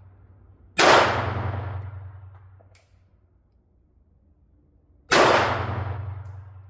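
Two pistol shots from a Springfield Armory Hellcat 9mm micro-compact, about four seconds apart, each dying away over about two seconds.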